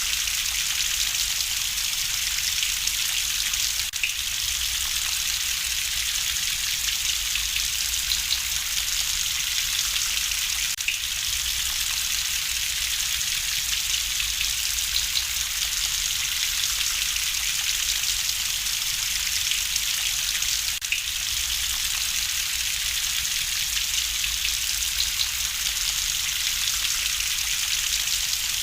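Steady rain hissing, mixed with a wood fire crackling in a fireplace, with scattered small pops and a few sharper clicks.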